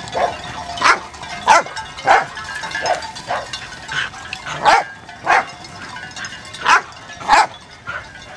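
A dog barking repeatedly in short, sharp barks at a fairly even pace, about three barks every two seconds.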